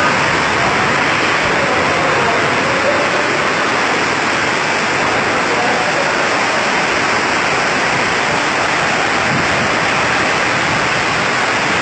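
Strong storm wind, a loud steady rushing noise with no letup.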